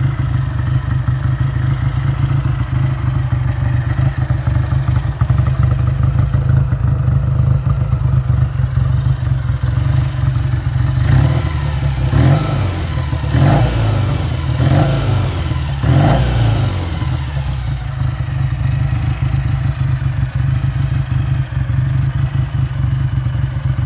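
1963 Triumph Twenty One (3TA) 350 cc parallel-twin engine running at a steady idle. Around the middle it is given several quick blips of the throttle, each rising and falling, before it settles back to idle.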